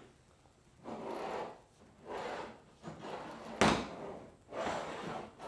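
Paracord anchor trolley line being pulled back and forth through its pulleys, a series of sliding, rubbing swishes about once a second, with one sharp knock about three and a half seconds in.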